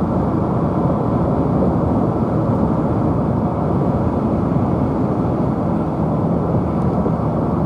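Steady road and engine noise of a moving car heard from inside the cabin: an even low rumble with no distinct events.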